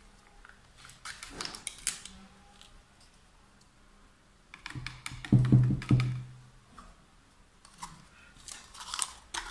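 Kitchen handling sounds over a plastic mixing bowl of batter: a paper sachet rustling and a spatula scraping and tapping. A little past halfway comes a louder low humming rub with clicks lasting about a second and a half.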